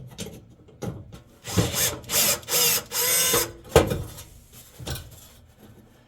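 Cordless power screwdriver running in about four short bursts, backing out a screw that holds the oven igniter, then a sharp knock.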